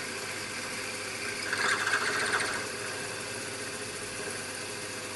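Milling machine spindle running steadily with a drill bit in the cut. About one and a half seconds in, a rougher grinding burst lasting about a second comes from the bit rubbing in the hole without cutting cleanly.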